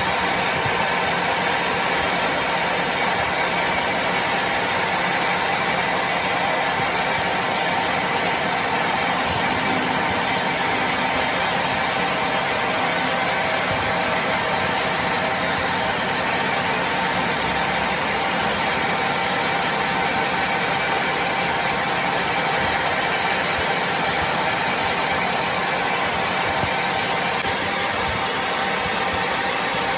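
A machine running steadily with no change in speed: a constant mechanical hum with several steady tones in it.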